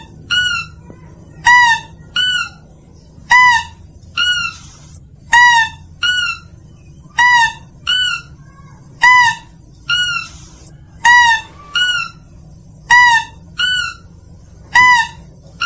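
Mouse-deer (kancil) lure call: short, high, nasal calls in pairs, a loud one and then a softer one, repeating about every two seconds in an even loop.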